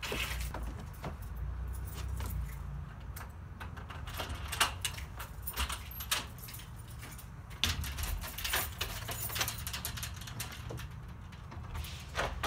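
A bunch of keys jangling and clicking in scattered bursts as a door is worked open, with footsteps on a wooden deck, over a steady low rumble.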